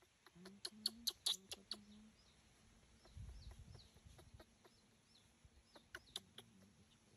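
A run of short, low animal clucks with sharp clicks in the first two seconds and a few more clicks near the end. Faint high chirps sound throughout, and a brief low rumble comes in the middle.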